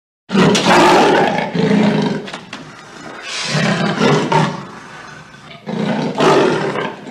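Tiger roaring: three long calls of one to two seconds each, with short pauses between them.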